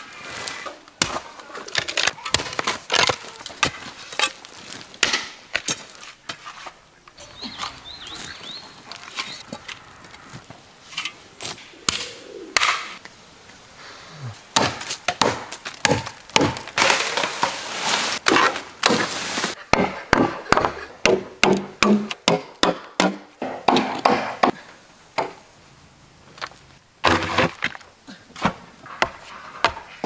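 Repeated hard strikes of hand tools: hoes digging into earth, and a machete chopping through a thick bamboo culm, with cracks and thunks of bamboo. The strikes come thicker and faster in the second half.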